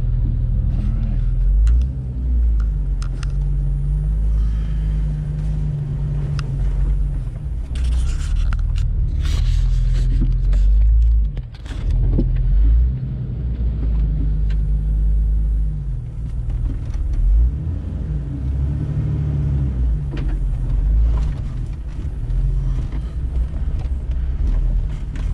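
Off-road vehicle's engine running at low revs and rising and falling as it crawls a rough trail, with scattered knocks and rattles. There are two brief scraping, hissing bursts about eight and ten seconds in.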